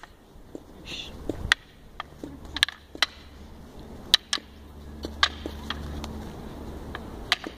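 Wooden fighting sticks striking each other in sparring: about a dozen sharp, irregular clacks, some in quick pairs, the loudest about four seconds in, over a low rumble.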